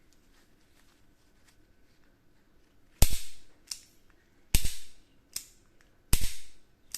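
Three loud, sharp cracks from a 7mm pinfire revolver, about a second and a half apart, each followed by a softer click from its action.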